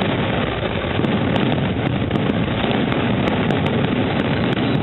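Fireworks display going off in a dense barrage, the bangs and crackle merging into one steady, unbroken din with no pauses.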